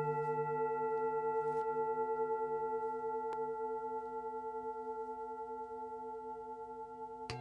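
A struck metal bell-like tone rings with several steady overtones, wavering and slowly fading; it is struck again just before the end.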